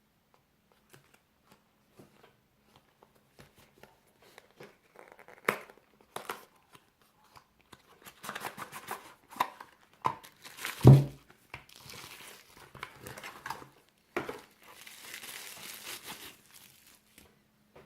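Packaging being handled and unwrapped: crinkling, rustling and tearing of wrapping, with scattered small clicks and one louder thud about halfway through.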